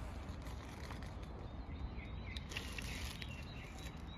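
Outdoor background with a steady low rumble and a few faint, short bird chirps in the second half.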